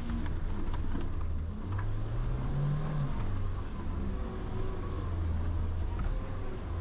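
An off-road 4x4's engine running, revving up about two seconds in and dropping back a second or so later.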